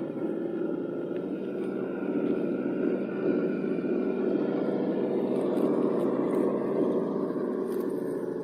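Engine of a 6x6 Unimog running steadily as the truck drives.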